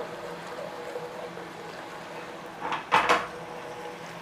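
Garlic-ginger paste frying gently in oil and ghee in a pan, with a countertop oven's fan whirring steadily behind it. A brief clatter of kitchenware about three seconds in.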